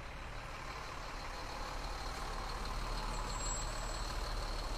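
Fire truck's heavy engine running close by with a steady low rumble that grows slowly louder as the truck draws up.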